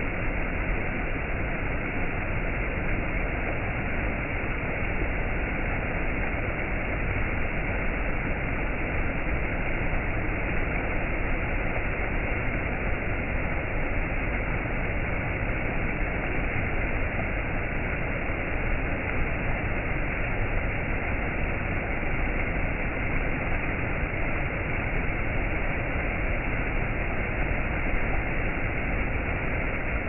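Mountain stream rushing and splashing over stepped rock ledges in a steady, unbroken rush of water.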